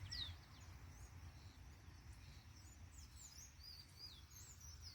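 Small songbirds chirping faintly: a couple of quick, high, falling notes at the start, then scattered high twitters, over a low steady rumble.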